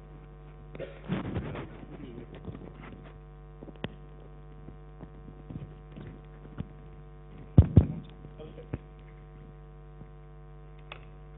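Steady electrical mains hum on the microphone line, with a stretch of rustling a second or two in and two loud thumps close together about eight seconds in.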